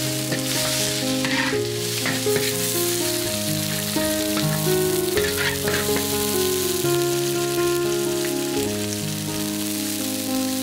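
Sliced green chili peppers sizzling in oil in a wok, with a metal spatula scraping and stirring now and then, under background music with held notes.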